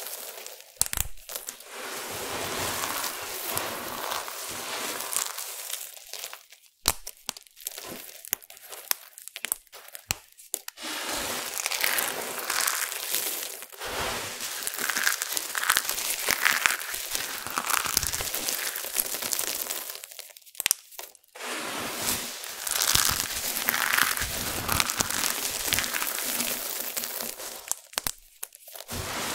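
Dry crumbled clay pieces crunching and crackling as hands scoop, sift and press into the heap, with many small sharp ticks of fragments falling and grinding together. The crunching pauses briefly three times.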